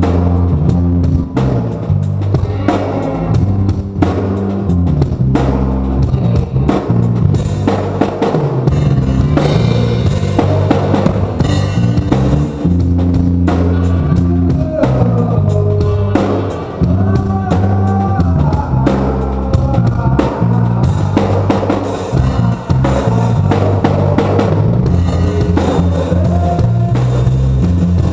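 A live band playing, with the drum kit loudest: bass drum and snare hits over a moving bass line.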